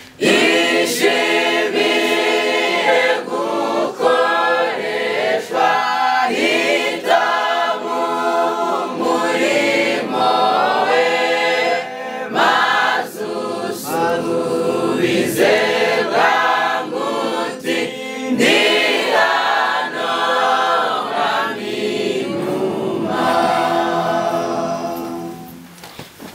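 A choir singing a hymn, the singing dying away near the end.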